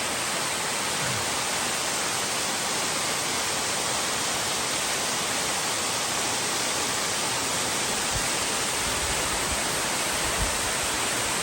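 Waterfall: a steady, even rush of falling water, with a few faint low thumps in the second half.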